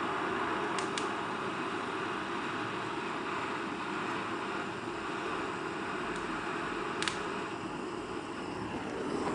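Kindling burning in a fireplace firebox as it catches: a steady rushing noise with a few faint crackles, about a second in and again near the end.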